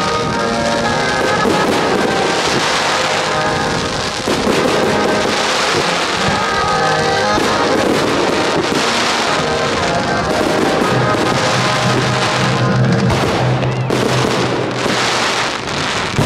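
Fireworks shells bursting and crackling, with music playing steadily throughout.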